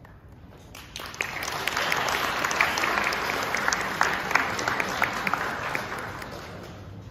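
Audience applauding, starting about a second in, swelling, then dying away near the end.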